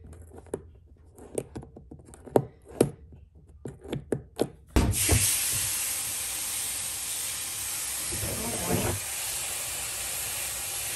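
A run of light clicks and taps at a plastic poultry-waterer nipple, then a thump and a steady hiss and sizzle from the electric tank de-icer heating shallow water in a plastic garbage can. The heater is running hot enough that it is taken to be melting the plastic.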